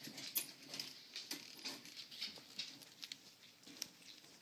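Prairie dog chewing a carrot, with faint, irregular crunches.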